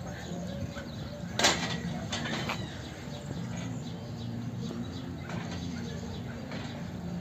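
A sharp knock about a second and a half in, then two fainter knocks, as a lifter lies back on a weight bench and lifts a 100 kg barbell off the power rack's hooks. After that only a low steady background noise.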